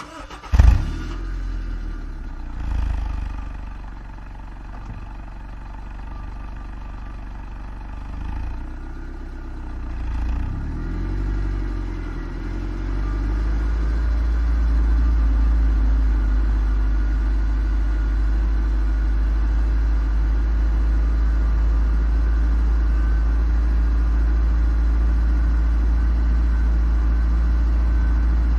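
Car engine starting with a sudden loud catch about half a second in, then running with a couple of brief revs whose pitch rises and falls. It then settles into a steady, louder low running sound for the rest of the time.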